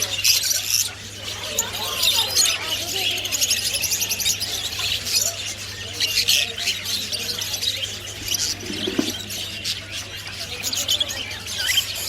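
Many caged birds chirping, twittering and squawking at once in a dense, continuous high chatter.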